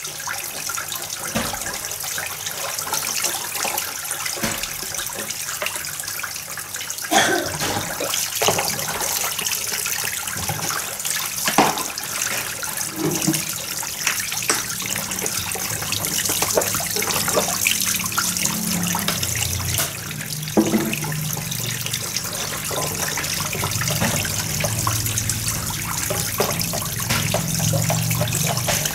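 Dishes being washed by hand in plastic basins: steady splashing and trickling water, with scattered sharp clinks and knocks of dishes against each other and the basins.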